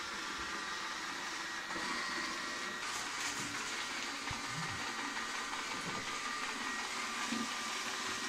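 Small round robot vacuum cleaner running: a steady whirring hiss with a couple of faint, steady high-pitched tones from its motor.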